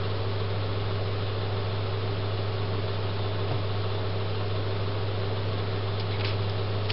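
Steady low hum with an even hiss over it from a running appliance, unchanging throughout.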